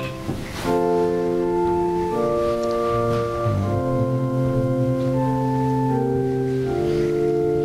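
Organ playing slow, held chords that change every second or so, with a brief break just after the start.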